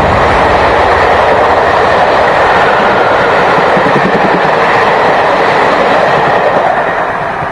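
Passenger train coaches passing close beneath at speed, a loud steady rush of wheels running on the rails, easing slightly near the end as the last coaches go by.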